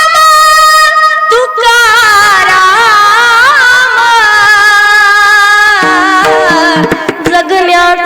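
A woman singing a devotional kirtan melody in long held, ornamented notes with instrumental accompaniment. Sharp percussion strikes come in near the end.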